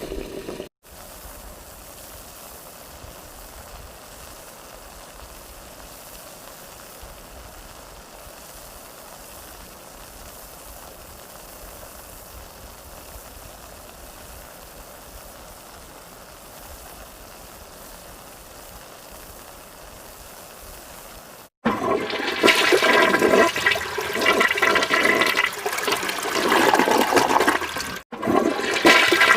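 A short sound cut off under a second in, then a faint, steady hiss for about twenty seconds. After a sudden cut, loud rushing water starts and runs on, broken by a brief gap near the end.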